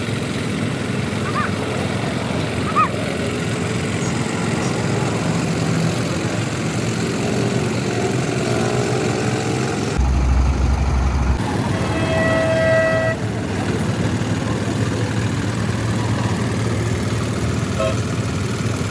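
Steady traffic and engine noise from the surrounding roadside yard, with a vehicle horn sounding once for about a second just past the middle.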